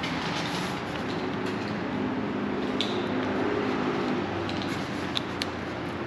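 Climbing rope running under load through a Prusik hitch and carabiners as the capture is released and the load is let ride, over a steady rumble, with a few sharp metal clicks of carabiners near the end.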